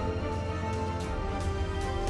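Background music: held notes over a steady bass, with light percussion hits.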